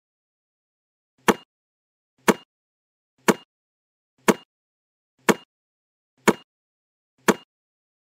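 Seven sharp knocks at an even pace of one a second, each with a brief ringing tone, with dead silence between them.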